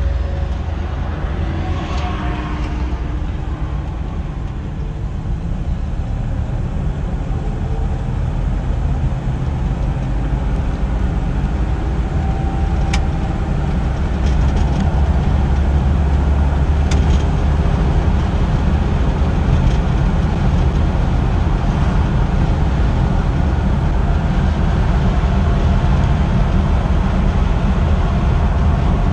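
1958 Chevrolet Biscayne's original 283 cubic-inch V8 heard from inside the cabin while driving: a steady low engine rumble mixed with road noise, growing a little louder about halfway through as the car gathers speed.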